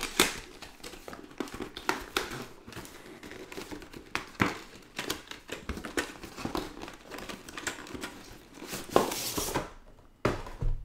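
Cardboard retail packaging being handled and opened: rustling, scraping and soft knocks of card against card and hands. About nine seconds in a longer, louder scrape as the printed outer sleeve slides off the black inner box.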